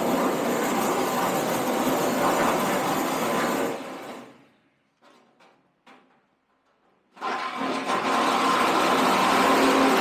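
Electric power tool running hard on metal, a steady loud whirr and hiss. It stops about four seconds in, leaving a few faint clicks, and starts again a little after seven seconds.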